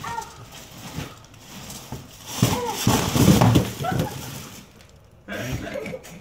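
A costume built from foil-wrapped cardboard boxes topples onto a tile floor with a crash and crinkle, about two and a half seconds in. Short voice-like cries come before and after the fall.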